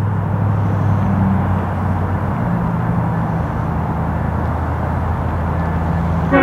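Diesel locomotive engine of an approaching train, heard at a distance as a steady low drone over a broad haze of background noise.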